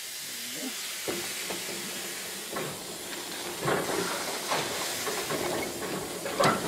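1915 Baldwin 0-6-2T tank steam locomotive rolling slowly along the track: a steady steam hiss with irregular clanks and clicks from the wheels and running gear, getting louder as it goes.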